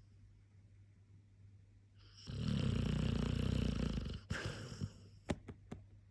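Clumber spaniel snoring in its sleep: one long, loud snore starting about two seconds in and lasting about two seconds, then a shorter, softer breath and a few sharp clicks near the end.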